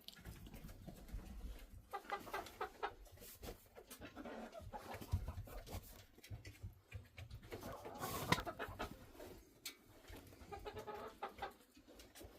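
Backyard hens clucking in short scattered bouts, with a few sharp clicks and knocks among them.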